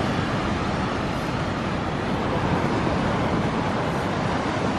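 Ocean surf breaking along the beach, heard as a steady, even rushing noise.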